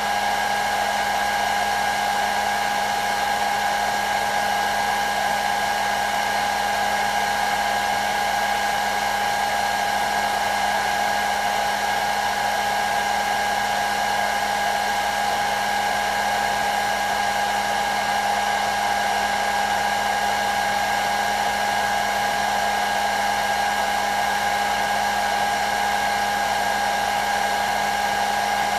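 Hair dryer running at a constant speed: a steady rush of air with a high whine over it, unchanging.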